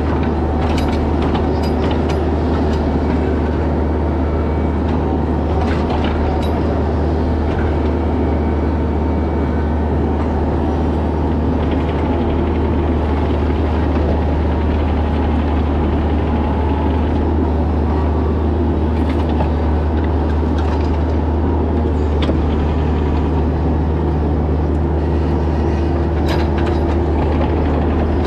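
Bobcat E26 mini excavator's diesel engine running steadily under load, heard from the operator's seat, with scattered knocks from the bucket working dirt and rock during backfilling.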